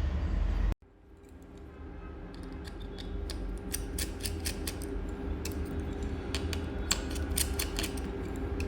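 A loud low rumble cuts off within the first second. Then comes a run of small, sharp metallic clicks and scrapes from a hand tool over a steady low hum, growing denser after about three seconds.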